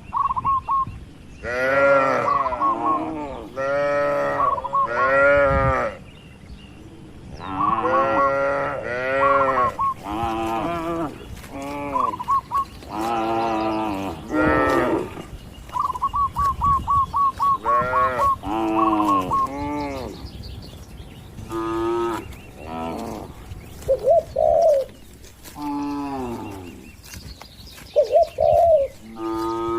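Cattle mooing over and over, one long call after another with hardly a pause. The calls rise and fall in pitch and sometimes overlap, and quick stuttering higher calls come in between.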